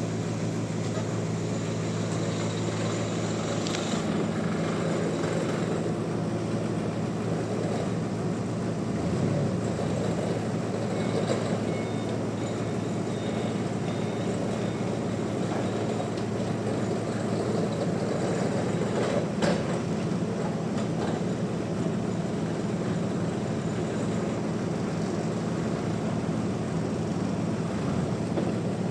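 Band sawmill running steadily with a low, even machine hum and a few short clicks and knocks.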